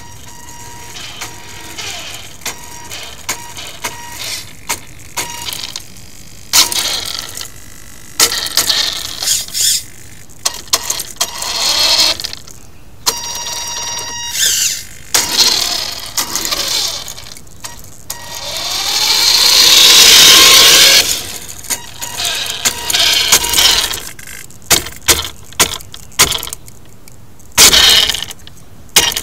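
RC drift car driven in short throttle bursts: its motor whines and its tyres scrub on the asphalt in quick stabs, with one longer run about two thirds of the way through that swells and fades. There is no idle between the bursts.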